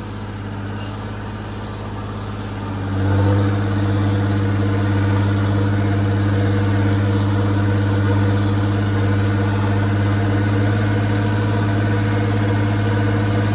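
Turbocharged John Deere tractor diesel engine running steadily at about 2,000 rpm, PTO speed, while pulling a rotavator in second low gear. About three seconds in it gets louder, then holds its speed under the load.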